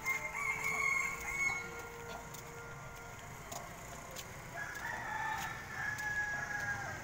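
Roosters crowing twice: one crow as it begins, and a second, longer and slightly lower crow from about four and a half seconds in that drops in pitch as it ends.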